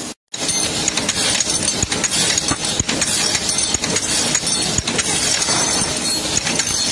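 A bench wire-brush wheel spinning against a cast metal part. It makes a steady scratching hiss full of small metallic ticks as the casting is cleaned.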